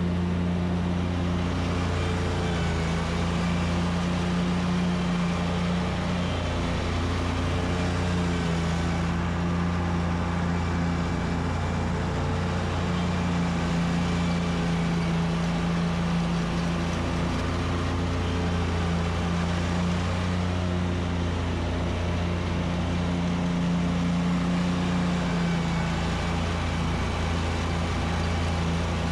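Gasoline engine of a commercial lawn mower running steadily at mowing speed with the blades engaged, cutting grass. A constant drone that dips slightly in pitch every few seconds.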